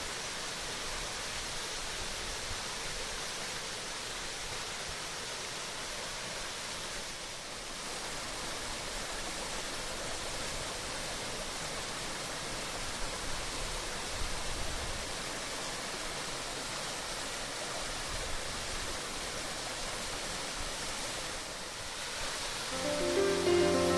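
Waterfall rushing, an even, steady noise of falling water. Music with held notes comes in near the end.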